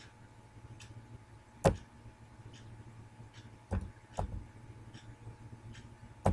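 Computer keyboard keys pressed one at a time as a number is typed: scattered short clicks with a few louder knocks, the loudest a little under two seconds in, over a faint steady hum.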